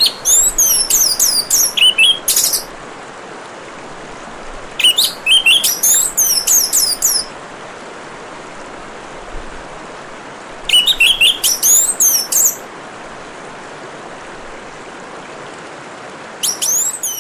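Orange-headed thrush singing in four separate phrases of fast, varied, sweeping whistled notes, with pauses of a few seconds between them. Under the song, steady trickling water runs throughout.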